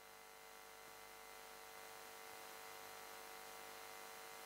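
Near silence: a faint steady electrical hum with hiss.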